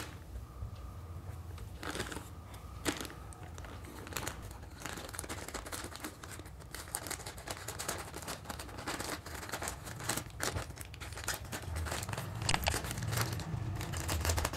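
Plastic courier mailer bag crinkling and crackling as it is handled and cut open with scissors, in irregular bursts of snips and rustles.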